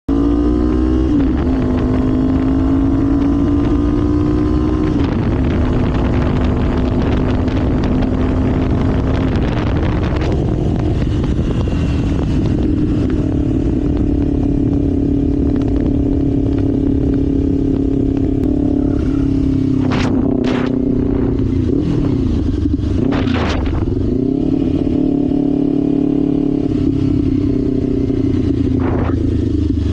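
Kawasaki Ninja 500's parallel-twin engine running under way, revs rising at the start, then holding mostly steady, easing off and picking up again past the middle. A few short sharp clicks are heard a little past the middle and near the end.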